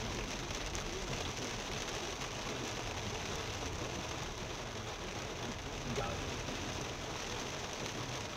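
Heavy rain on a moving car, heard from inside the cabin: a steady hiss of rain on the windscreen and roof and tyres on the wet road, with a low rumble beneath.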